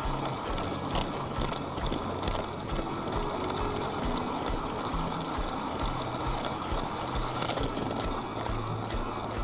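LEGO train's small electric motor and plastic wheels running on plastic LEGO track, heard from a camera riding on the train: a steady mechanical running noise with a quick, regular clicking.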